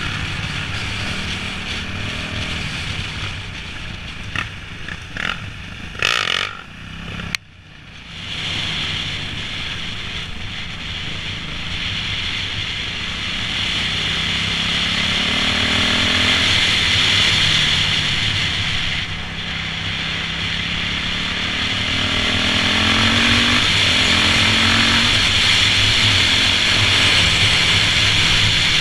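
2008 Yamaha YZ450F's single-cylinder four-stroke engine running under way, its pitch rising several times as it accelerates, with a steady rushing hiss over it. A few sharp knocks come about four to six seconds in, and the sound drops out briefly about seven seconds in.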